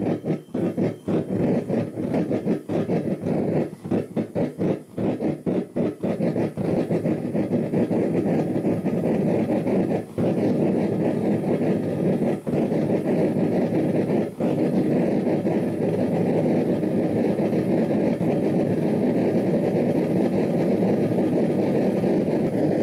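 A gas forge burner that has just been lit, its flame rushing into a firebrick chamber. For the first six seconds or so it sputters and flutters unevenly, then it settles into a steady roar as the burner stabilises.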